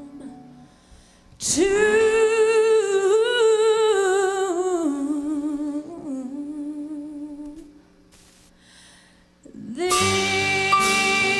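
A woman's solo voice sings a slow hymn without accompaniment. She holds a long note with vibrato that slides down in pitch, then sings a shorter phrase. Near the end, instrumental accompaniment comes in under the voice.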